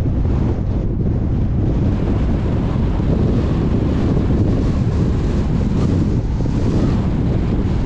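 Steady rumble of wind and road noise from a car driving at speed, with wind buffeting the microphone.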